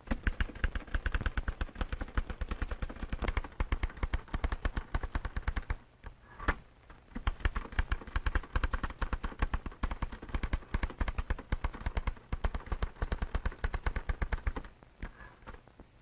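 Manual office typewriter being typed on rapidly: a fast, dense run of key and typebar strikes. There is a brief break about six seconds in, and the typing stops about a second before the end.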